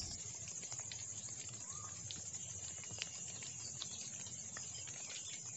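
Faint, steady high-pitched insect chorus, like crickets calling in vegetation after rain, with a few soft scattered clicks.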